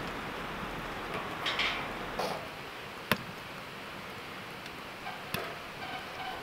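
Small wood fire crackling in a stainless-steel fire pit as it is being started and fed with kindling, with rustling of sticks being handled and two sharp snaps, about three seconds and five seconds in.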